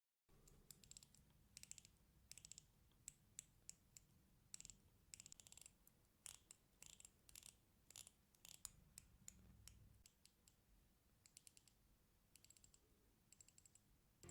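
Ratchet Ring, a fidget ring whose outer band turns in one direction, being rotated so its ratchet clicks. The clicks are small, faint and sharp, coming in quick runs with short pauses between.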